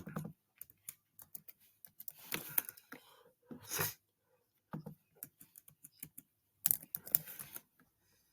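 Irregular small clicks with a few short, louder rustling bursts.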